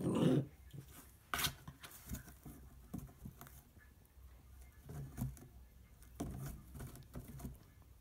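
Soft, irregular scuffling and light taps from a small terrier and a cat moving on carpet and in a cardboard box, with a short louder rustle at the very start and a sharp click about a second and a half in.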